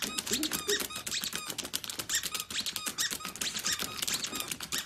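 Dog claws tapping and scratching rapidly on a tablet's touchscreen, a quick run of clicks, mixed with many short high squeaks.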